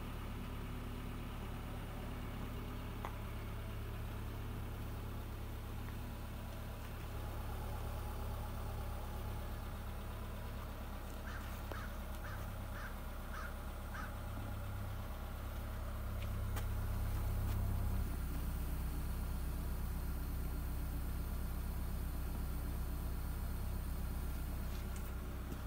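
2009 Subaru Outback 2.5i's EJ25 flat-four running at a steady idle at the exhaust, shortly after a cold start. Near the middle, a bird calls six times in quick succession.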